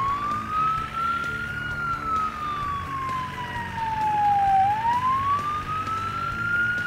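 Fire truck siren wailing: a single tone that rises, falls slowly over about three seconds, and rises again.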